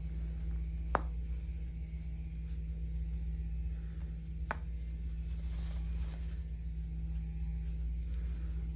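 Handheld Rapid Release vibration therapy device running with a steady low hum while it is worked over the patient. Two sharp clicks stand out, about a second in and halfway through.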